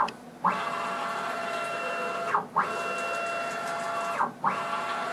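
Z axis of a home-built CNC router running rapid up-and-down moves: a steady whine of several tones from the axis drive that ramps up, holds for about two seconds and ramps down as the axis stops and reverses. Two full strokes with short pauses between them, and a third starting near the end.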